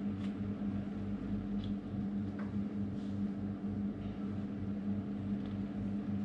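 A steady low hum, with a few faint clicks and taps from small parts being fitted inside a motorcycle helmet.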